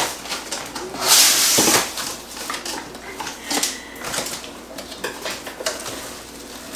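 Cardboard box being opened and unpacked: tape cut with scissors, flaps pulled open, contents shuffled and lifted out. A loud noisy scrape lasting most of a second comes about a second in, followed by light clicks and rustles.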